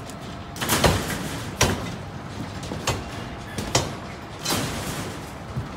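A series of sharp knocks, about one a second, the loudest just under a second in, over steady construction-site background noise.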